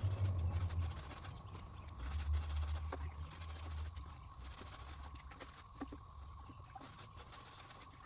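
A stiff-bristle brush scrubbing greasy seat belt webbing in a bucket of hot soapy water, with irregular small knocks and low sloshing thumps, heaviest in the first second and again about two to four seconds in.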